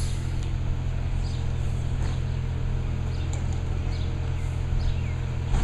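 Garbage truck's diesel engine running with a steady low drone, while a bird gives repeated short, falling chirps.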